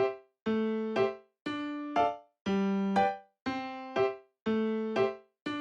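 Background music only: a simple tune in short phrases about once a second, each a held note followed by a short one, with brief gaps of silence between.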